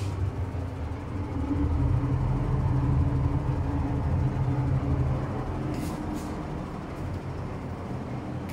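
Low, steady drone of the vessel's engines heard through the hull in a deck below the waterline. It grows louder about a second and a half in and eases off after about five seconds.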